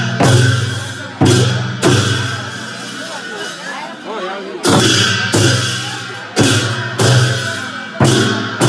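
Large hand-held frame drums beaten in a dance, each stroke a deep boom that rings out, roughly one every two-thirds of a second. The beating pauses for a couple of seconds near the middle, where voices are heard.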